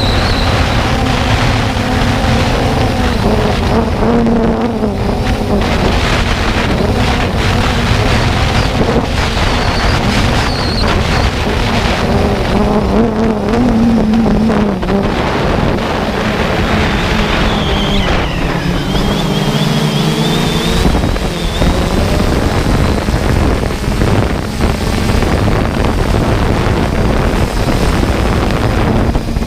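Multirotor drone's propeller motors whining steadily, their pitch wavering up and down as the throttle changes, with wind rushing across the microphone.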